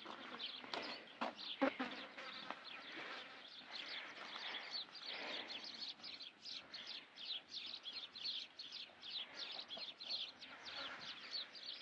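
Birds chirping: a quick run of short, falling high notes, several a second, building up after a few seconds. A few sharp knocks in the first couple of seconds.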